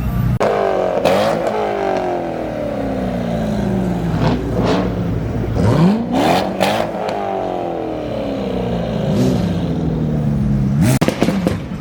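Car engines revving hard and accelerating, rising sharply in pitch on each rev and gliding down as they ease off. A few sharp cracks are mixed in.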